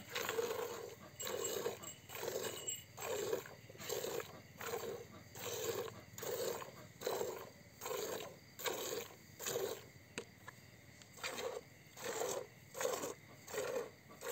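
Buffalo milk squirting from hand-stripped teats into a plastic bucket, in a steady rhythm of about three squirts every two seconds, with a short pause about ten seconds in.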